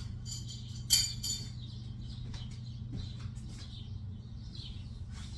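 A metal cooking pot being fetched and handled in a kitchen: one sharp clank about a second in, then a few lighter knocks and clicks, over a steady low hum.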